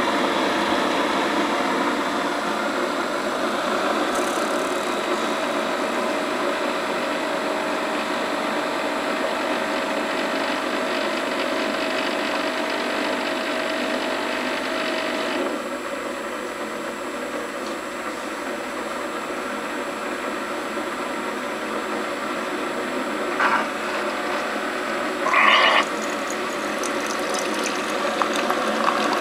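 Keurig coffee maker brewing a K-Cup: its pump runs with a steady mechanical buzz. A faint tone in it cuts off about halfway through, and two short louder bursts come near the end.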